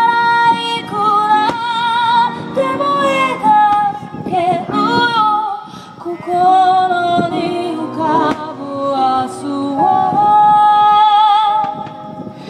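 Music: a woman singing a melody in long held notes with vibrato, over instrumental backing.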